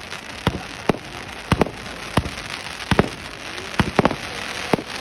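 Fireworks going off: about ten sharp bangs at irregular spacing, some coming in quick pairs, over a steady crackling hiss.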